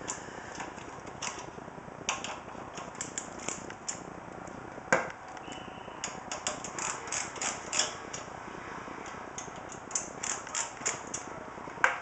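Hand screwdriver driving long screws through a case fan's mounting holes into a steel computer case, clicking in quick runs as it is turned. There is a sharp knock about five seconds in, and another near the end as the screwdriver is put down on the table.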